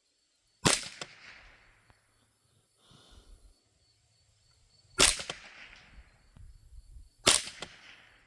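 Three shots from a Savage A22 semi-automatic .22 LR rifle firing Federal Auto Match rounds, each a sharp crack followed by a short fading echo. The shots come about four seconds and then two seconds apart.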